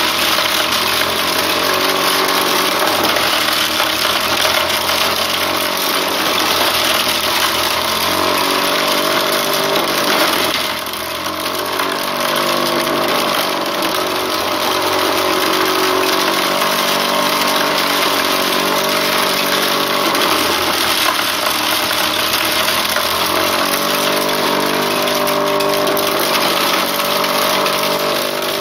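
Motor of a homemade wooden corn sheller running steadily. Its note shifts in pitch several times, and it dips briefly about ten seconds in.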